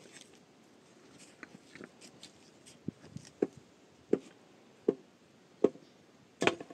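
Footsteps crunching on stony, gravelly ground: light scuffs at first, then firm, even steps about three quarters of a second apart from about three seconds in, the last one the loudest.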